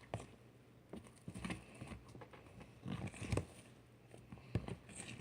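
Soft, homemade slime topped with foaming hand soap being handled and poked by hand, giving scattered faint squelching clicks and pops at uneven intervals.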